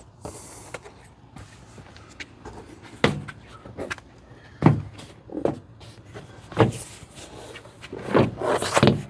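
A series of sharp plastic knocks and snaps as a door trim panel is pressed onto a Toyota 4Runner liftgate and its clips pushed home. The knocks come a second or so apart, then bunch up near the end.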